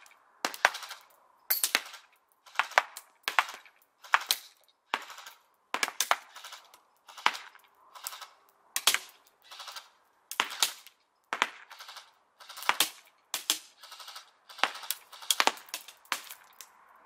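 Cybergun M249 Minimi airsoft electric gun firing again and again, about three sharp shots or very short bursts every two seconds. The owner finds it shoots weakly and suspects a poor air seal in its gearbox.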